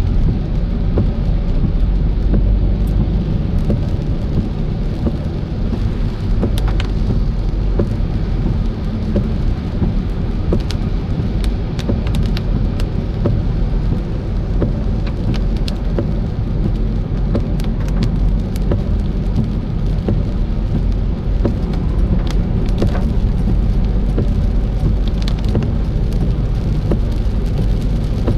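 Rain hitting a moving car: scattered ticks of raindrops over a steady low rumble of road and engine noise.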